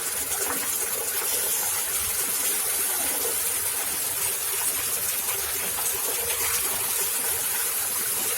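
Candlenut cracking machine with its thresher-sieve running steadily: a dense, even rushing noise with scattered small clicks.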